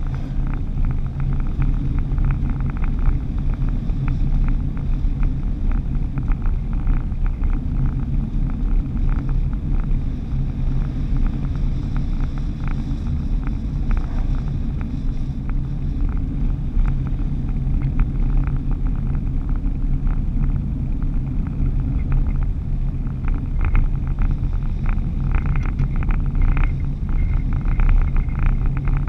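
Vehicle driving at cruising speed on a paved highway, heard from inside the cab: a steady low engine and road rumble with frequent small clicks and rattles.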